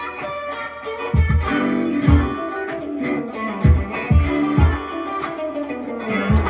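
Stratocaster-style electric guitar played in a funky chicken-pickin' country style, with a steady low beat underneath.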